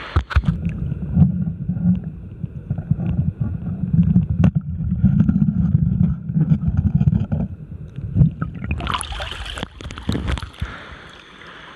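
Muffled underwater rumble and gurgling of river water moving around a submerged camera, with scattered knocks. About nine seconds in, a louder hissing splash-like noise lasts a couple of seconds.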